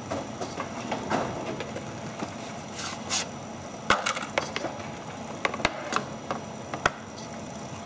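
Small tools and objects being picked up and set down on a wooden workbench: a handful of scattered sharp clicks and knocks over a faint steady background.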